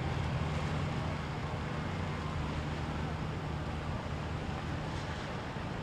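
Motorboat engines running steadily with a continuous low hum, mixed with wind noise on the microphone and the wash of water.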